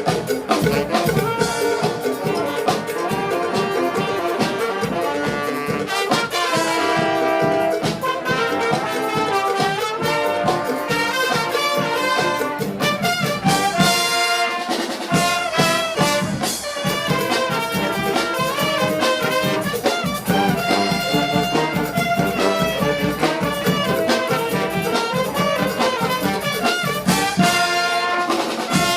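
Charanga brass band playing a lively tune, with brass and a steady drum beat.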